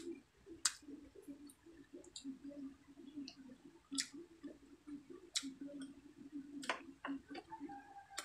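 Close-up mouth sounds of a person eating fried dried milkfish: soft chewing with closed lips, broken by sharp wet lip and tongue smacks at irregular moments.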